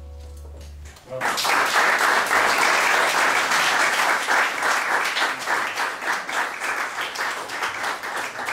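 The jazz quintet's last chord, with a low double-bass note, rings on and stops about a second in; then the audience breaks into applause.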